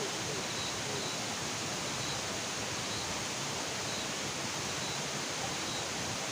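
Steady, even hiss of outdoor night ambience, with a faint high chirp repeating about once a second.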